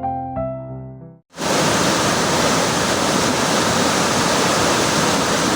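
Soft piano music fades out and, after a moment's gap, the sound cuts to the steady roar of the Dzhur-Dzhur waterfall, water crashing down without a break.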